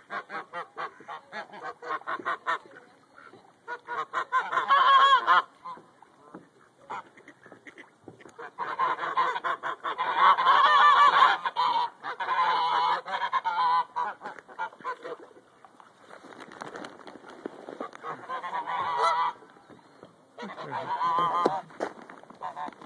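Greylag geese honking in repeated loud bouts of calls, the longest run lasting several seconds in the middle.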